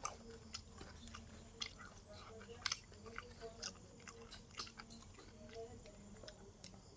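A person chewing food: faint, irregular soft clicks and mouth sounds.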